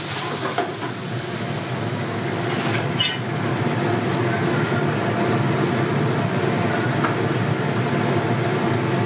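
Masala curry gravy sizzling in a steel kadai over a gas burner, with a short clink about three seconds in as the ladle or added peas meet the pan. A steady low hum runs underneath.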